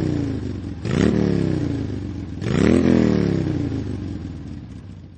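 Motorcycle engine revved twice, each rev climbing quickly in pitch and then sliding back down, following the tail end of an earlier rev; the sound fades away near the end.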